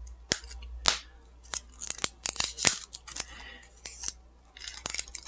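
Cardboard packaging of a makeup palette being handled and opened by hand: irregular sharp clicks, snips and short rustles.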